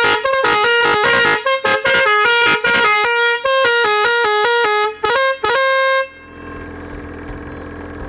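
Three-trumpet telolet air horn playing a quick tune of stepped, brassy notes, cutting off suddenly about six seconds in. A quieter steady hum remains after it.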